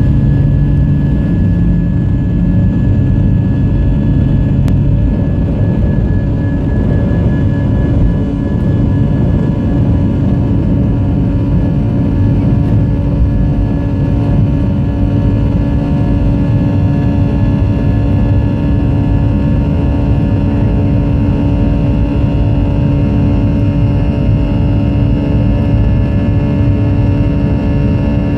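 A jet airliner's engines at takeoff thrust, heard from inside the cabin through lift-off and the climb: a loud, steady rush with a constant hum at a fixed pitch underneath.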